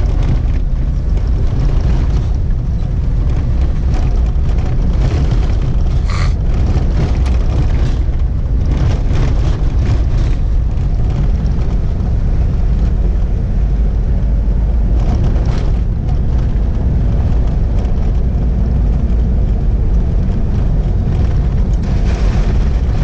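Steady low engine and road rumble inside a vehicle's cab while driving on a wet dirt road, with a few brief knocks about six, nine and fifteen seconds in.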